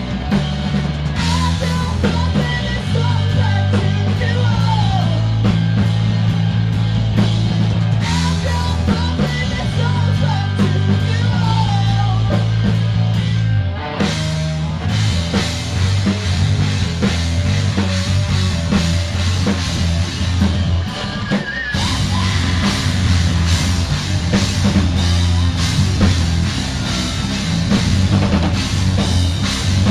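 Live rock band playing loud, with electric guitar and a drum kit driving a full, dense sound. The music breaks off briefly about halfway through and dips again for a moment about two-thirds of the way in, then comes straight back in.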